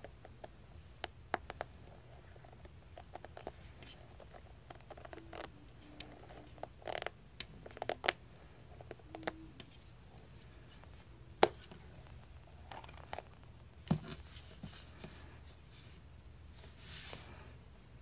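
A rubbery spiked squishy toy (Cottondale Googly Bunny) squeezed, pinched and stretched by hands: soft squishing and rubbing of its spikes with scattered small clicks and taps and a few brief squeaks. Two sharper clicks stand out about eleven and fourteen seconds in, and a short louder rustle comes near the end.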